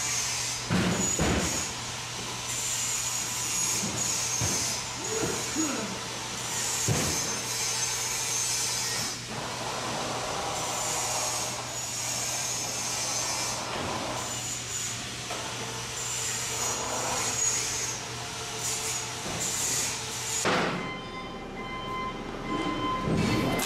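Metal fabrication shop background noise: a steady machine hum with a hissing noise that swells and fades every second or two, and a few dull knocks. About three-quarters of the way through, the hiss drops away and a steadier set of higher tones takes over.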